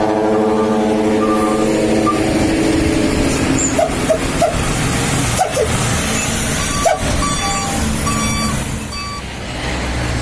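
A dump truck's ship-style trumpet air horn holds one low, steady note that stops about three and a half seconds in, over the constant rumble of truck engines. A few sharp clicks follow, then a run of short, high beeps near the end.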